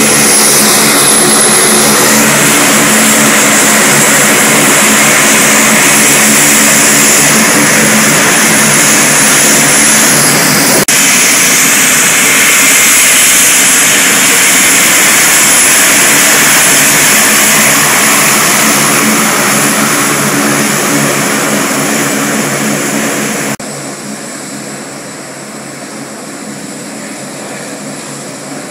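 Four turboprop engines of a US Air Force C-130 Hercules running loud as it taxis past at close range: a dense steady engine and propeller noise with a high whine over it. The sound eases off and then drops sharply about 24 seconds in, continuing quieter as the aircraft moves away down the runway.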